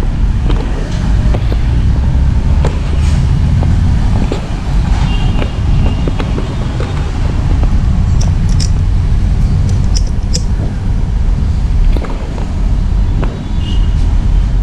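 A steady low rumble of vehicle traffic, with scattered light clicks.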